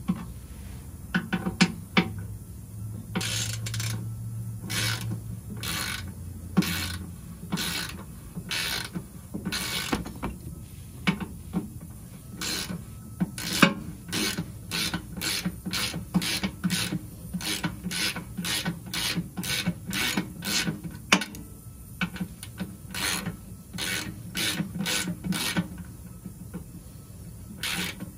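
Hand ratchet clicking in runs of quick strokes, one to two a second with a few short pauses, as the bolts holding the aluminum skid plate are backed out.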